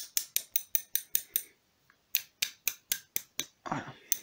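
A brass rod tapping on the pressed-steel floor plate of a Norinco JW15 .22 LR magazine, driving it back into place to close the magazine. It makes rapid, even light metallic taps, about four to five a second, with a pause about a second and a half in, then a second run of taps and a short scrape near the end.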